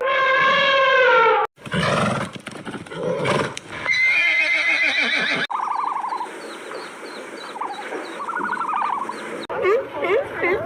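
A string of short animal-call clips cut one after another: a long drawn-out call, then a horse whinnying with a high wavering neigh, then other calls, ending in a fast run of short repeated calls at about three a second.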